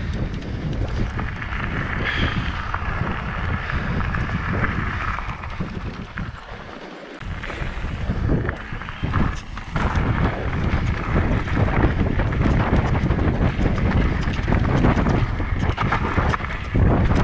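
Wind buffeting the microphone of a rider on a moving e-bike, a steady low rumble that drops off briefly about six seconds in.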